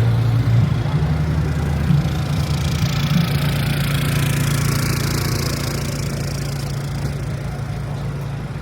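A motor vehicle engine idling with a steady low hum that eases off slightly toward the end.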